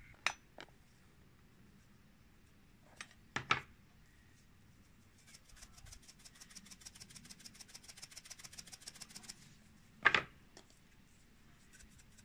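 Spices shaken from a shaker-top spice tin into a stone mortar, a fast run of faint ticks for several seconds in the middle and again near the end. A few sharp knocks, the loudest about ten seconds in, as tins are handled and set down.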